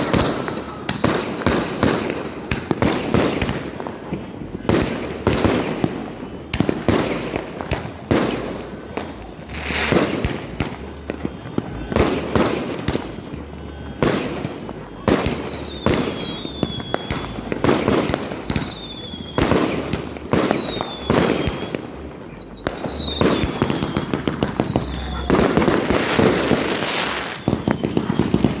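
Many fireworks going off in quick succession: a steady run of sharp bangs and pops, with short falling whistles in the middle stretch and a dense crackling barrage near the end.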